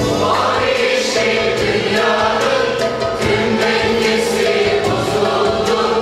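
Mixed choir singing a Turkish art music (Türk Sanat Müziği) song in unison, accompanied by ouds and other plucked traditional Turkish instruments. The voices come in at the start, over the instruments.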